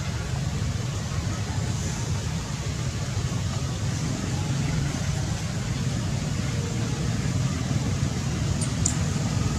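Steady low rumble of outdoor background noise, with two very short high ticks near the end.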